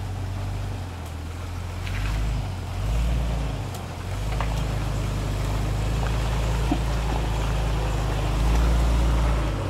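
Lifted Jeep Grand Cherokee's engine running at low revs as it crawls over rocks on a trail. The engine note swells about two seconds in and again from about four seconds on as throttle is applied, with a few faint clicks and knocks.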